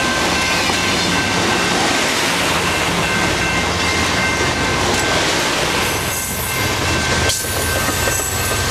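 Amtrak passenger coaches rolling past at close range, a steady rumble and rattle of wheels on rail, with a faint steady thin ringing above it.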